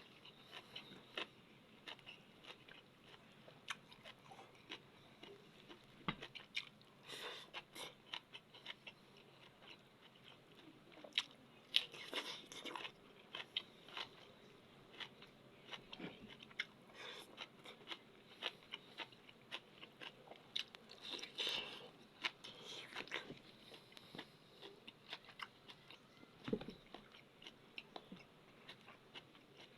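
Close-up chewing and biting of crunchy food, with irregular crisp crunches and mouth clicks.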